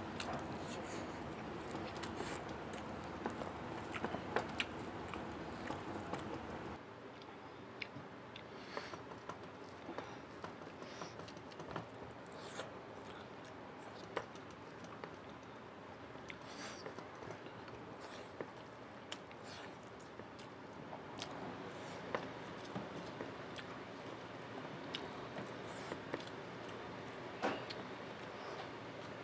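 Close-up eating sounds of a person eating rice by hand: fingers mixing rice on a plate, and chewing with many small clicks and wet mouth noises. A steady background noise cuts out about seven seconds in.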